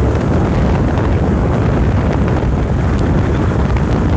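Car driving along, its road and engine noise mixed with heavy wind buffeting the microphone: a loud, steady low rumble.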